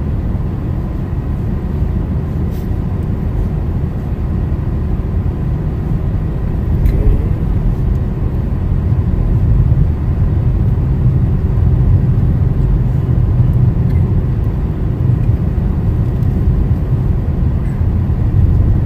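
Road noise inside a car driving slowly on a snow-covered road: a steady low rumble of tyres and engine, with a few faint ticks.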